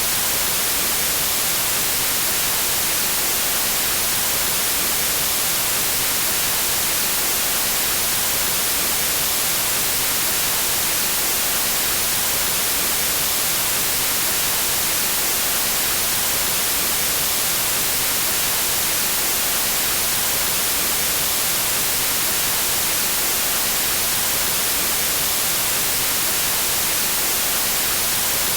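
Steady synthetic white noise: an even hiss, strongest in the treble, with no changes.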